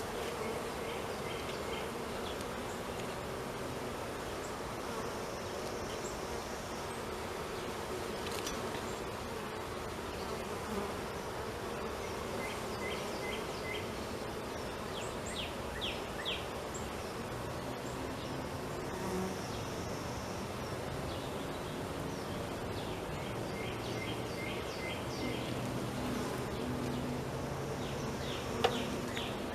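Honeybees buzzing around an open hive, a steady drone whose pitch drifts as bees fly close to the microphone and away. Short high chirps come in a few times, and there is a single click near the end.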